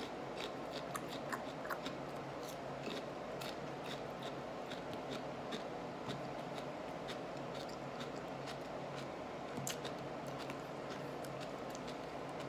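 A person chewing whole raw jalapeño peppers with the mouth closed: irregular small crunches and clicks, busier in the first half, over a steady low hum.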